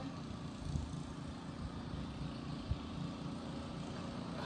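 Ocean surf as a steady low rush of waves, with one faint click a little before three seconds in.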